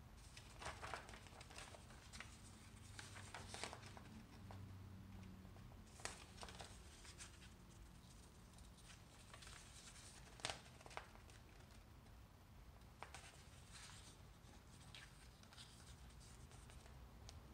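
Printed paper pages being handled and flipped by hand: faint, scattered rustles with a few sharper ticks, the loudest a quick double tick a little past halfway, and near silence in between.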